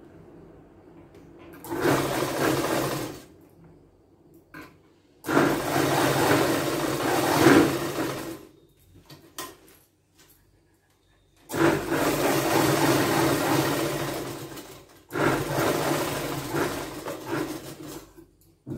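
Sewing machine running in four bursts of stitching through layered blouse fabric, each one and a half to three and a half seconds long, with short quiet pauses between them.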